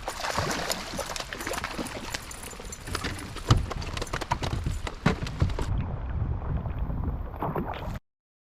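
Storm rain and gusting wind buffeting the microphone on a kayak, with many irregular sharp taps and knocks of drops striking; the sound cuts off suddenly near the end.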